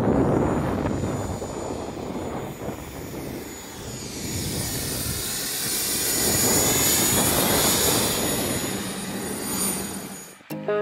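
Helicopter running, a loud rushing noise with a thin steady high whine and a slowly sweeping, swelling tone that is loudest about midway. It fades just before the end.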